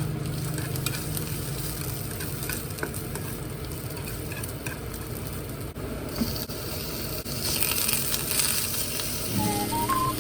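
Food sizzling in a frying pan while it is stirred and tossed, with small scrapes and clicks of the utensil. The sizzle grows louder about seven seconds in. Background music comes back near the end.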